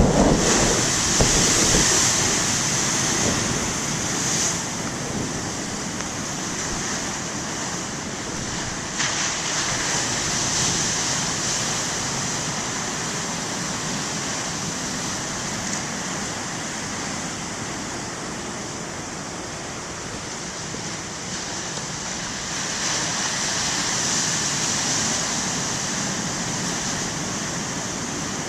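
Heavy ocean surf breaking and washing, a continuous rush that swells and fades, loudest at the start and again near the end.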